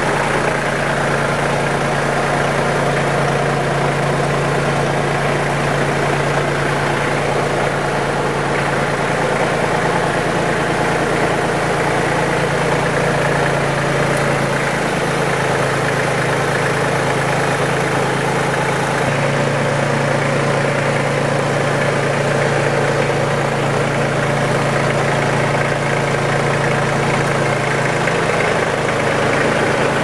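Iseki AT33 tractor's diesel engine idling steadily, its low hum stepping slightly in pitch a few times.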